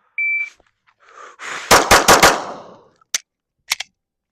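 Shot timer beep, then about a second and a half later four rapid 9mm pistol shots, followed by a couple of short sharp clicks. The string stops on a malfunction, which the shooter takes for a failure to eject or a failure to feed.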